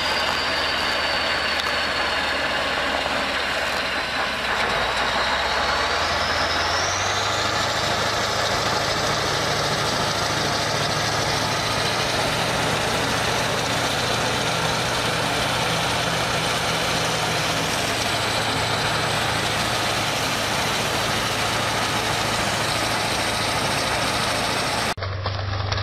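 Diesel engine of a Vityaz DT-30P articulated tracked all-terrain vehicle running under load as it wades through icy slush, under a steady dense rushing noise. About seven seconds in, the engine note steps up and a faint high whine rises in pitch.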